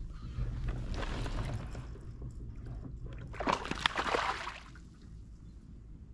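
Water splashing as a hooked bass thrashes at the surface beside a kayak, loudest from about three and a half to four and a half seconds in, after a softer stretch of sloshing.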